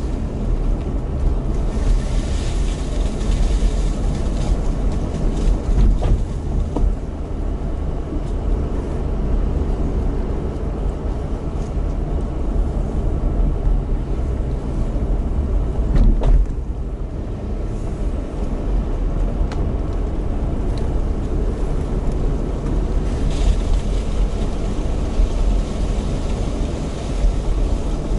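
Car with a four-speed automatic held in second gear, climbing slowly: a steady low engine and tyre rumble heard from inside the cabin. There is a sharp knock about sixteen seconds in and a few lighter ticks.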